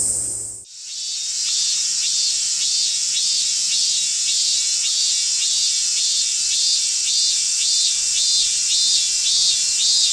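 Cicadas singing in summer heat: a steady high buzz, with a pulsing call repeating about twice a second over it. The sound drops out briefly about half a second in, then resumes.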